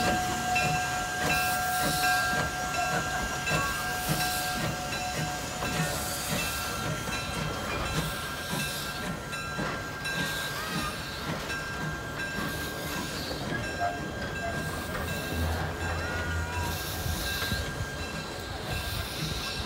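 Steam-hauled passenger train rolling slowly past: the caboose and coaches' wheels knock over the rail joints, with steam hissing from the coal-fired 0-4-0 tank locomotive ahead. A thin, steady squeal is heard for about the first six seconds.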